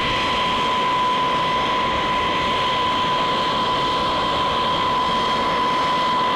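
B-52H Stratofortress's eight TF33 turbofan engines running at low power as it taxis: a steady high whine over an even rushing roar.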